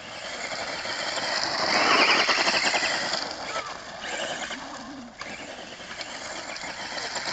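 Tamiya Rising Fighter electric RC buggy driving on gravel: its motor whines and its tyres scrabble over the stones. The sound swells to its loudest about two seconds in and eases off after about five seconds.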